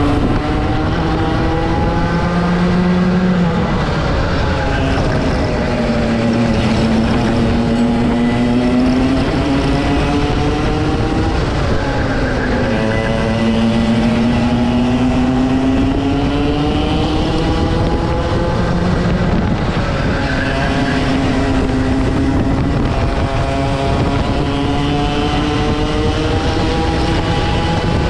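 Rotax two-stroke kart engine racing at full throttle. Its pitch climbs slowly, then falls back several times, most sharply about twelve seconds in, as the revs drop and build again. A second engine tone is heard alongside at the start, about nineteen seconds in and near the end.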